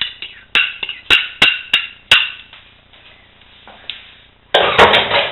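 A metal spoon is knocked sharply against the rim of a bowl about five times, shaking the last of the egg-yolk mixture off into the pan. Near the end comes a brief, dense clatter of kitchenware.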